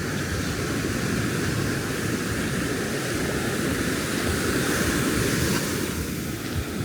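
Ocean surf breaking and washing up the beach, a steady rushing noise that swells louder a little past the middle, with wind on the microphone.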